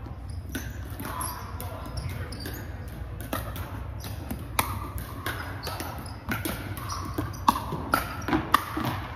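Pickleball paddles hitting a plastic ball: sharp pops echoing through a large gym, scattered at first, with the loudest hits coming close together in the last two seconds.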